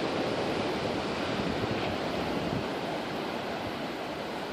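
Steady rushing noise of wind and distant ocean surf breaking against the coast, easing off slightly toward the end.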